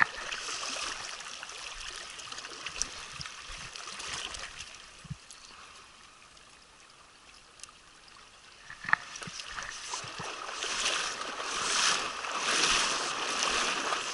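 Mountain trout stream rushing over rocks, a steady hiss of running water that eases off in the middle and swells again near the end, with a few small knocks about nine seconds in.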